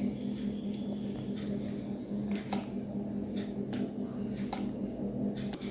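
Steady low electrical hum, with about five short, sharp clicks in the second half as buttons on an IR remote control are pressed.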